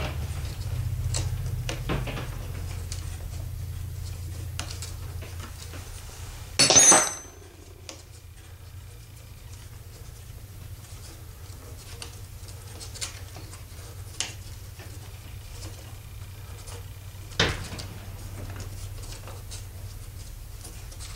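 Hands working a homemade wooden spiral jig on a scroll saw: scattered small clicks and knocks of wood and metal parts being shifted, with one louder clatter about seven seconds in and a sharp knock near the end, over a low steady hum.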